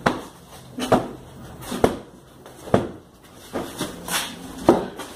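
Repeated sharp thuds, about one a second, from blows struck in a staged fight.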